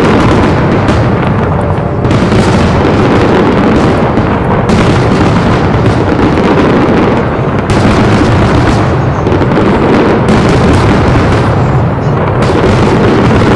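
A loud, continuous barrage of aerial fireworks, many shells bursting and crackling at once, with several sharper bursts standing out every few seconds.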